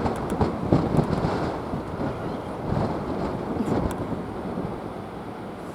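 Wind buffeting the microphone: a steady rushing noise with a few faint sharp clicks.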